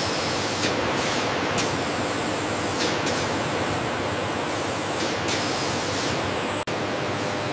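Steady hissing hum of factory machinery, with a momentary dropout about two-thirds of the way through.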